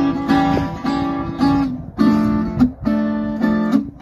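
Acoustic guitar strumming chords in a steady rhythm, an instrumental intro before the singing comes in.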